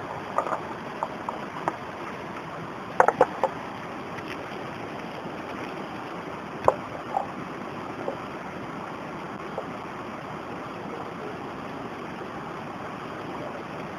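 Steady rush of a shallow rocky stream, with a few light clicks and knocks: a small cluster about three seconds in and a sharper one near seven seconds.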